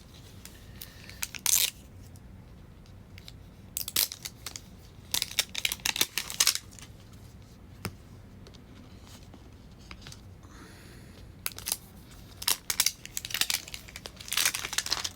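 Thin plastic wrapping being crinkled and torn open by hand, in irregular bursts with pauses between them.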